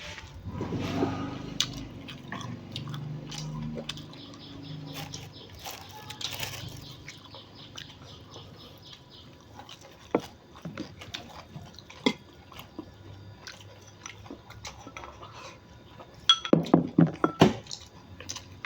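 Eating at the table: chewing of crunchy pork sausage with scattered small clicks and clinks of utensils and dishes, and a quick run of louder clattering knocks near the end.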